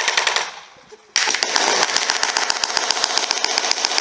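Machine gun firing blanks in automatic bursts: a short burst at the start, then a long sustained burst from about a second in, at roughly ten shots a second.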